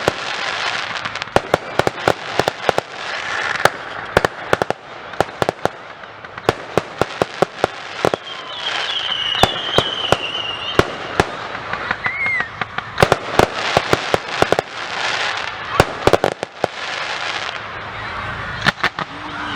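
Fireworks display going off: a rapid, dense run of sharp bangs and crackling bursts, with a brief high whistling glide around the middle.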